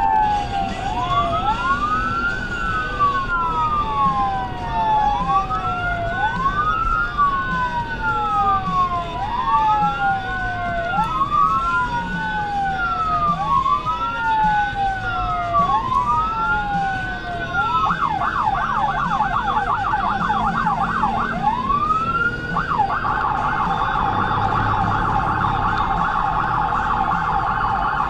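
SoundOff Signal nERGY 400 series 200-watt electronic siren through composite speakers on a responding emergency vehicle, sounding a wail that rises and falls about every two seconds. Near the end it switches to a fast yelp of about three sweeps a second, then, after one more rising sweep, to a very fast warble.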